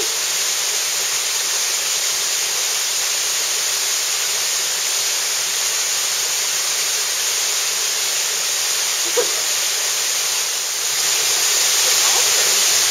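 Waterfall pouring into a pool: a steady rush of falling water that swells slightly about eleven seconds in.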